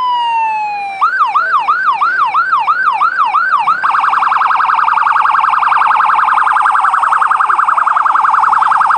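Electronic siren of a miniature fire engine built on a golf-cart chassis, running through its tones: a falling wail for the first second, then about three quick rising-and-falling yelps a second, then from about four seconds in a much faster warble.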